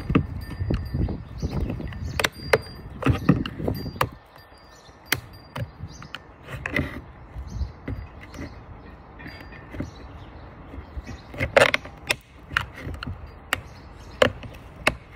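Small flathead screwdriver prying and scraping at the plastic rear clip of a Dyson V8 cyclone assembly, with scattered sharp plastic clicks and knocks. A low rumble fills the first four seconds.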